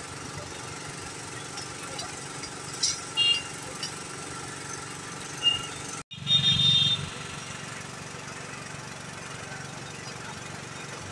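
Steady hum of street traffic and engines, with a few short clinks. The sound drops out for an instant about six seconds in, then a brief louder burst follows.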